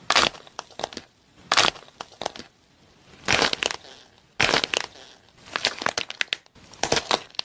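Hands squeezing and breaking apart a crusty white fake cake, giving dry cracking and crunching in about six short bursts with quiet gaps between.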